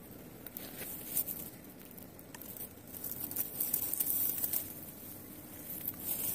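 Rustling and crinkling handling noises: an irregular run of light crackles, busiest around the middle.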